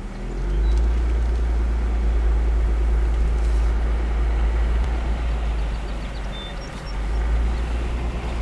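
Jeep driving slowly on a gravel road: a steady low engine drone and rumble of the moving vehicle.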